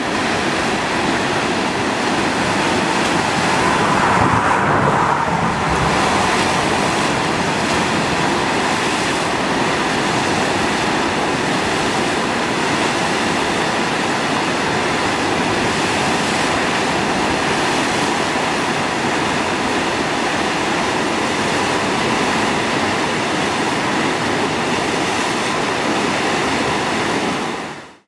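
Rushing whitewater of a standing wave being surfed by a kayak, a loud, steady roar of churning water.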